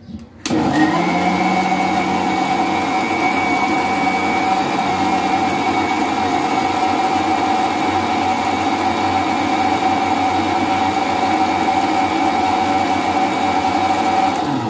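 Electric mixer-grinder blending pineapple chunks with water and sugar in its stainless-steel jar, its motor running at a steady high speed. It starts about half a second in.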